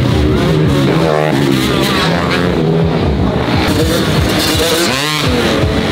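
Loud background music over dirt bike engines revving, with a couple of sweeping rises and falls in pitch.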